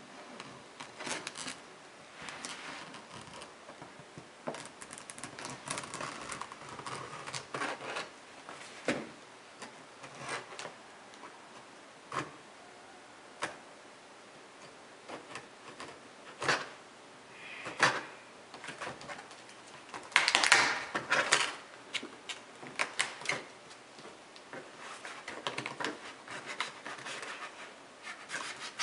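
Scissors snipping and scraping through packing tape along the seam of a large cardboard box, with irregular clicks, scrapes and rustles of tape and cardboard. A louder, longer stretch of scraping comes about two-thirds of the way through.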